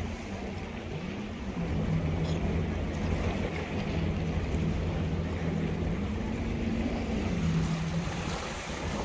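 Sea waves and wind buffeting the microphone, over a low engine drone whose pitch rises and falls every second or two.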